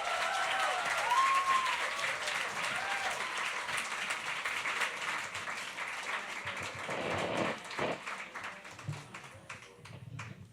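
Audience applauding and cheering, with whoops over the clapping in the first few seconds; the applause dies away near the end.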